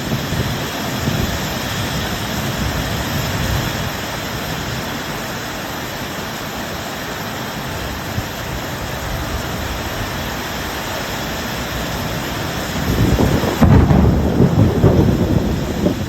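Heavy rain falling steadily in a thunderstorm, with low thunder rumbling under it; a louder roll of thunder comes in near the end.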